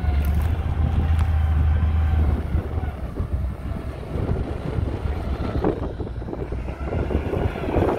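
Motor grader's diesel engine running with a deep drone that eases off about two and a half seconds in, as the grader's blade pushes soil, with wind noise on the microphone.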